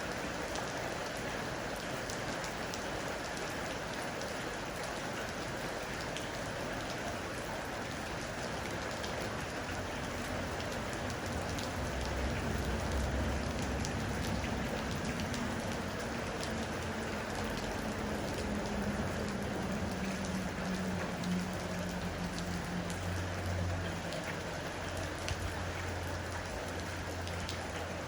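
Heavy rain pouring steadily. About ten seconds in, a low rumble rises beneath it and carries on under the rain.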